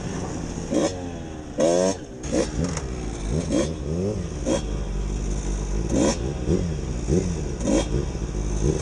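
Motorcycle engines revving up and down in short repeated blips while riding slowly on dirt, with a few sharper, louder revs.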